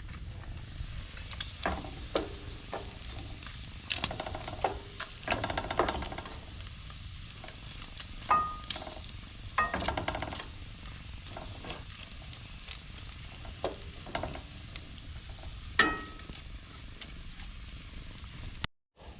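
Bacon and potatoes frying in pans, sizzling steadily, with scattered scrapes and knocks and a few short metallic clinks of a utensil against a pan.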